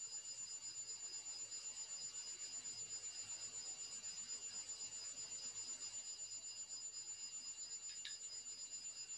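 Quiet room tone with a faint, steady high-pitched electronic whine made of several thin tones, one of them pulsing; a brief faint click about eight seconds in.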